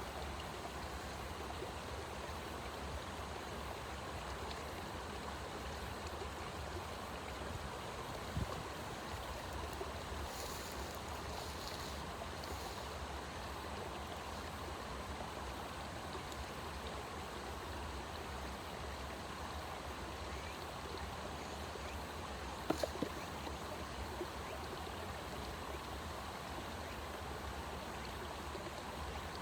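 Steady rushing noise of running water, with a brief knock about eight seconds in and a few short clicks a little past halfway.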